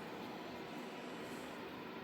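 Steady, even background hiss with nothing else standing out: room noise.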